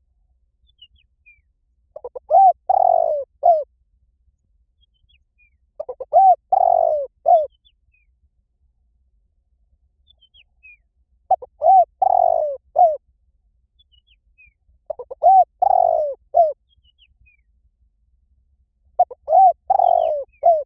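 Spotted dove cooing: five phrases of a few short coos ending in a longer one, repeated about every four seconds.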